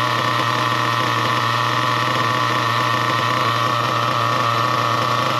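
Nitro RC car glow engine idling steadily at an even pitch, its low-speed needle set just right.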